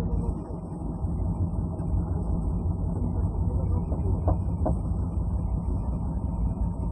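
Diesel engine of a concrete mixer machine running steadily with a low drone, with two short knocks a little past the middle.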